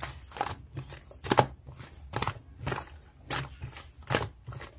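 Hand-played slime squished and stretched, giving irregular crackling clicks, about three or four a second, with the loudest about a second and a half in and again near the end.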